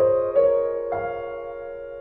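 Slow, gentle piano music: a few notes and chords struck and left to ring out and fade.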